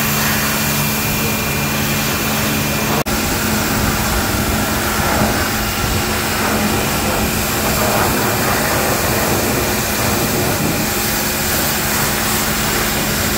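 Pressure washer running steadily while its wand sprays water onto a car, a constant motor hum under a broad spray hiss. The sound drops out for an instant about three seconds in, then carries on.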